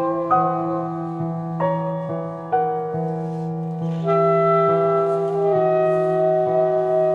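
Instrumental music: long held notes in a woodwind-like timbre over a steady low drone, with new notes struck in with sharp attacks about once a second, shifting the chord.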